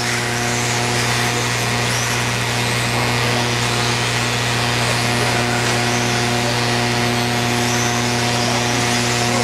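Electric 1/10-scale RC stock buggies racing, their 17.5-turn brushless motors whining and rising and falling in pitch as they speed up and slow down. A steady low hum runs underneath.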